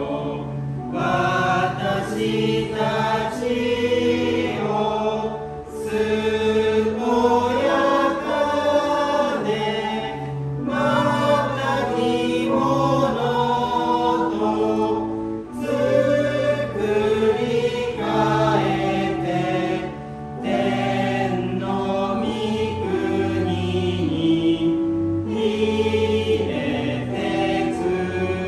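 Congregation singing a hymn together over held accompaniment notes, line by line, with a brief pause about every five seconds between lines.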